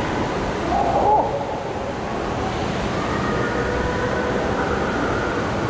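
Echoing indoor pool-hall ambience: a steady rush of water with children's voices, one child's short high call about a second in.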